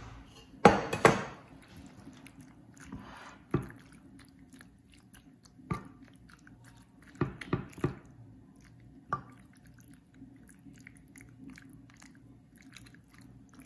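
A spoon spreading cooked penne and minced meat sauce in a glass baking dish: soft wet squishing, broken by a handful of short clicks and scrapes of the utensil against the dish and pot. The loudest cluster comes about a second in, with more scattered through the middle.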